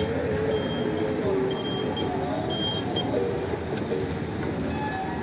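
Street traffic noise with a pedestrian crossing signal beeping: short high-pitched beeps at a slowing pace that stop about three seconds in.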